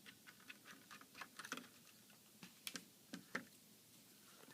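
Faint, irregular small clicks and taps of hands working a small SSD card loose from a laptop motherboard, with a few sharper clicks around a second and a half in and near three seconds.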